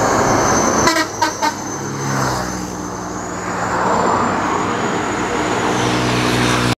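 Roadside traffic with a bus passing: a few short horn toots about a second in, then a steady engine drone and tyre noise that swell as it goes by.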